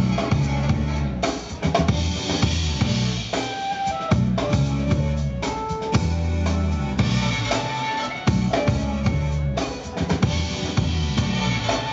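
Live band music played loud through outdoor stage speakers: a drum-kit beat with kick and snare under a deep bassline, with held higher keyboard notes.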